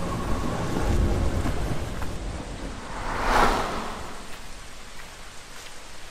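Steady rain with a low thunder rumble, and one rising-and-falling whoosh about three seconds in before the sound thins out.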